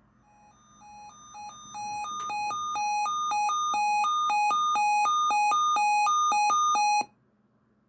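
Weather alert radio's alarm going off: a rapid run of beeps alternating between a lower and a higher pitch, growing louder over the first few seconds, then cutting off suddenly about seven seconds in. It signals an incoming alert, here a severe thunderstorm watch.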